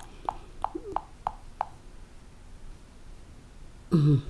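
Smartphone touch-feedback sounds: short, same-pitched ticks about three a second as a finger taps the touchscreen repeatedly, stopping about a second and a half in. A brief voice sound comes near the end.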